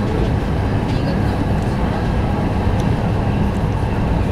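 A 200 series Shinkansen running at speed, heard from inside the passenger cabin: a steady low rumble of wheels on rail with rushing air.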